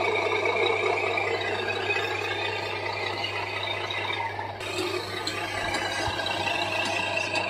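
Huina 1582 metal remote-control dump truck driving, its electric motor and gearbox whirring with some rattling from the metal body.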